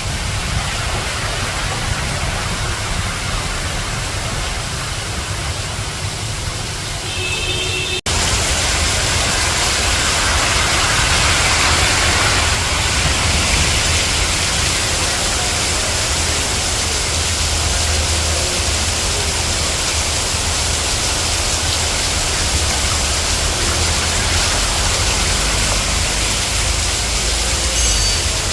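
Heavy rain pouring down in a steady hiss. An abrupt cut about eight seconds in, after which the downpour sounds louder.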